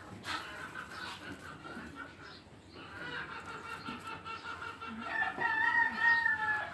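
Chickens calling, with a rooster crowing in one long held call about five seconds in.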